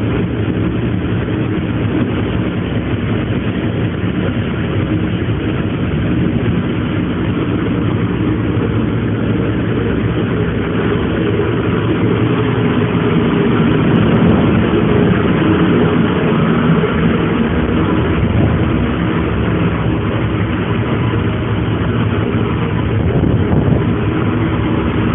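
A car ferry's diesel engine running at a steady drone, swelling slightly about halfway through.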